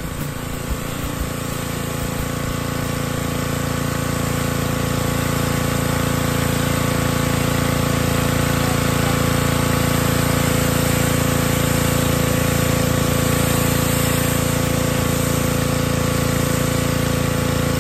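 Gas pressure washer's engine running steadily, with the hiss of the high-pressure spray hitting the mower. It gets louder over the first few seconds, then holds steady.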